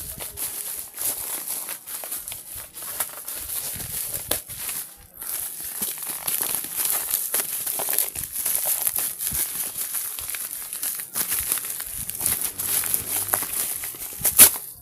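Plastic and cardboard packaging crinkling and rustling as it is handled and opened, in irregular crackly spells with a brief lull about five seconds in and a sharp snap near the end.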